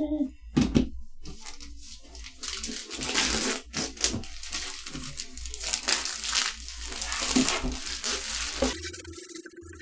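Crinkling and rustling of plastic packaging being handled, in dense irregular bursts that die down near the end.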